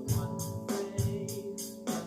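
Music with guitar and a steady drum beat, played back through a Sonos speaker.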